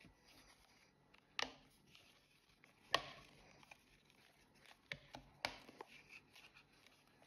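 Hard plastic clicking and tapping as a cut plastic patch is handled and pressed into a cutout in a plastic bin, with faint rubbing between. Three sharper clicks stand out, the loudest about three seconds in.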